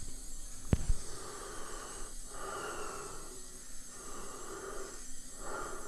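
SwitchBot Curtain robot motor whirring in short bursts with brief pauses as it drives a curtain along the rod during calibration. There is a single sharp click a little under a second in.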